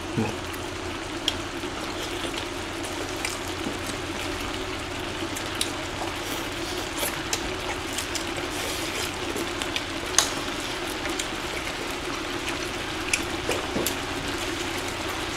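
Large pot of beef rib soup (galbitang) simmering on the heat, giving a steady bubbling hiss with scattered small clicks and pops.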